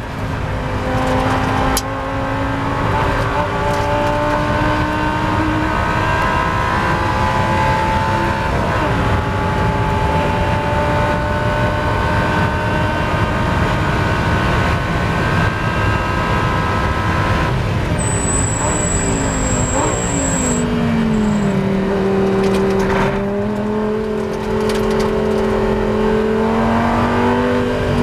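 In-car sound of a Lamborghini Gallardo Super Trofeo race car's V10 at full throttle, revving up through the gears with quick upshifts, then holding high revs down the straight. Near the end it comes off the throttle and drops pitch in steps as the driver brakes and downshifts for a corner, with a high steady beep for about two seconds as the braking begins.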